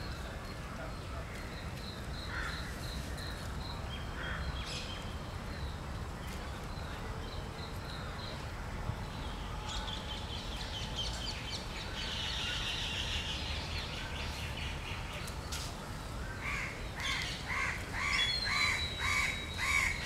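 A crow cawing over and over, about two caws a second, starting about 16 seconds in, over a steady low background noise. Thin, high small-bird chirps and trills come and go before it.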